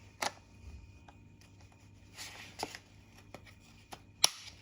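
Hands handling and fitting plastic parts of a charging socket flap cover: light rustling and a few clicks, with the sharpest click about four seconds in as a part is pressed into place.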